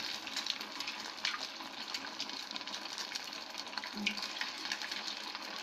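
Rice fritters deep-frying on a low flame in hot oil in a steel pan: a steady sizzle with light crackling.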